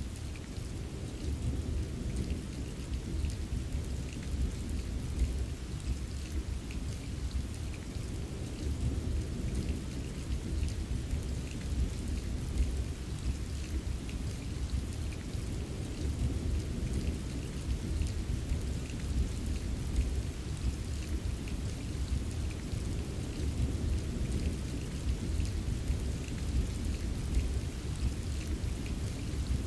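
Steady rain with a continuous deep low rumble underneath and scattered light drop ticks, a thunderstorm ambience.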